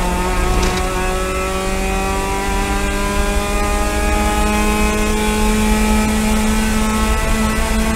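Mazda MX-5 race car's four-cylinder engine at full throttle, heard from inside the cockpit, its pitch climbing slowly and steadily as the car accelerates through one gear. A low rumble of road and wind noise runs beneath.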